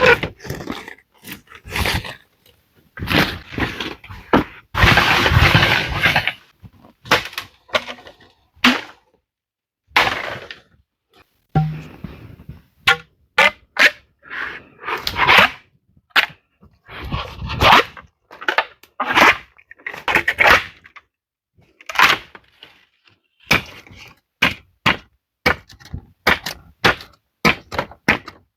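Irregular knocks and thuds of wood being struck, with longer stretches of cracking and crunching like branches breaking. Near the end the blows come quickly, in a steady run.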